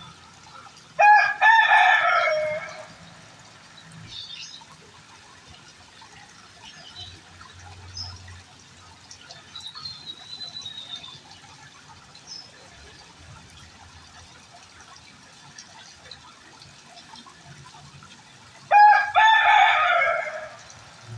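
A rooster crowing twice, each crow about two seconds long and falling in pitch at the end. Faint short bird chirps come in between.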